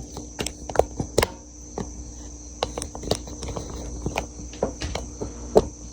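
Scattered light knocks and clinks as a Yamaha YZ125 engine is handled and turned onto its side, over a steady high-pitched tone.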